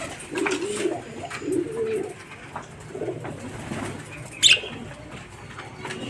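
Domestic pigeons cooing: several low, rounded coos. A single brief, sharp high-pitched sound about four and a half seconds in.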